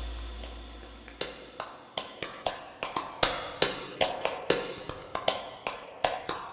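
Background music fading out, then light, irregular taps and clicks, two or three a second, from handling paper craft cards and a plastic binder ring on a tabletop.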